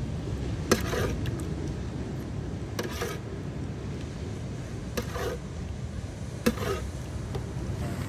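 Steady low rumble of a car's engine and road noise heard from inside the cabin, with a few sharp clicks or knocks at irregular moments.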